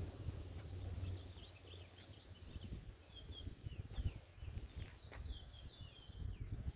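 Small birds chirping in quick, short notes over a low background rumble.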